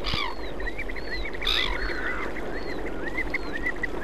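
A flock of flamingos calling: many short calls overlapping throughout, with two louder calls, one near the start and one about one and a half seconds in.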